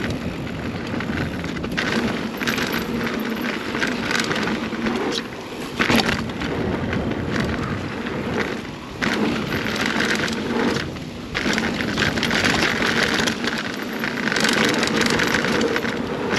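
2021 Scott Spark 970 full-suspension mountain bike ridden down a dirt trail: steady tyre and wind noise with frequent rattling knocks over bumps.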